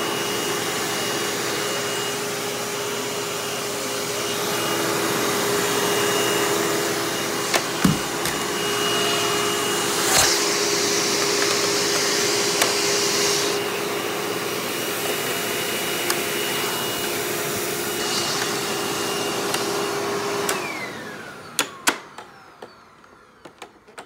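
Hoover Windtunnel Bagless U5786-900 upright vacuum running with its suction diverted to the on-board hose and air-driven pet hair turbo tool, a steady whine with a couple of knocks and a brighter rush of air for a few seconds in the middle. About twenty seconds in the motor winds down, followed by several light clicks and knocks.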